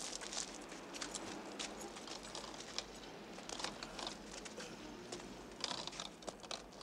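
Footsteps of people walking on a snowy, gritty sidewalk: irregular scuffing steps and clicks, a few each second, over a low steady street background.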